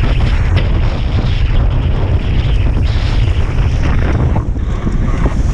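Strong wind buffeting the microphone over the rush and splash of waves along a sailboat's hull as it heels under sail through rough water. A steady, loud mix with a heavy low rumble throughout.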